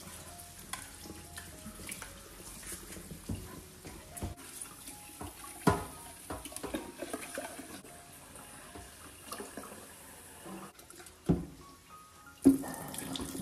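Tap water running and splashing as a stainless steel kettle is rinsed and scrubbed in a steel sink, with a few sharp knocks of the kettle against the sink. Near the end, water pours out of the tipped kettle into the sink.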